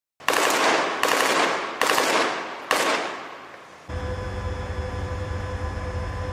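Four loud gunshots about a second apart, each followed by a long echoing decay. About four seconds in they give way to the steady low rumble and whine of a tracked armoured vehicle's engine running.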